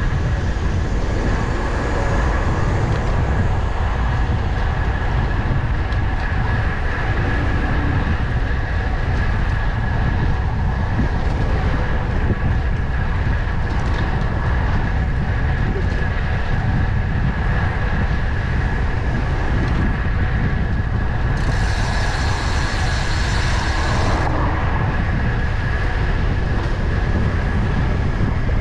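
Wind rumbling steadily on the microphone of a moving bicycle, with city traffic under it. About three-quarters of the way in, a high hiss lasts a few seconds.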